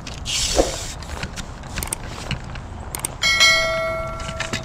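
A short hiss, then a single bell-like metallic ring with many high overtones that dies away over about a second and a half.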